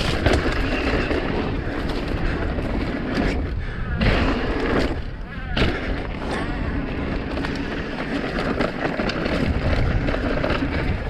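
Mountain bike rolling fast down a dirt jump trail, with steady wind rush and rattle on the ride-mounted camera's microphone and a few sharp thumps from landings and bumps, about four seconds in and again just before six seconds.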